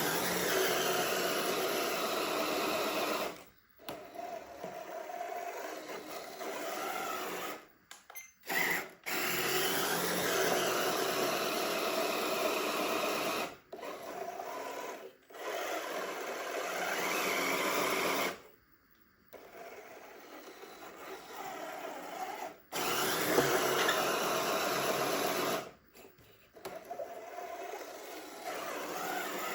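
Small electric motors and gearboxes of radio-controlled construction vehicles whirring, in runs of a few seconds that stop suddenly several times.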